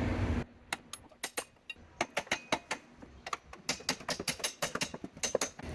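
Irregular run of sharp clicks and clacks of small hard objects being handled and knocked together, fast and uneven, with a few faint ringing notes.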